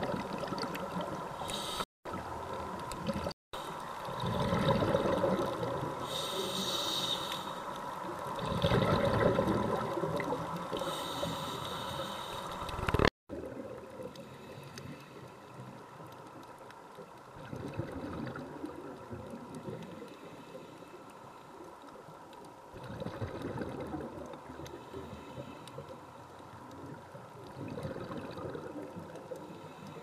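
Underwater camera sound: a diver's breathing bubbles gurgling in slow swells about every five seconds, over a steady water hiss. The sound cuts out briefly three times in the first half.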